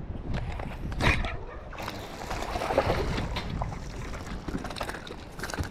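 Water splashing and sloshing against the side of a fishing boat, with a sudden sharp hit about a second in.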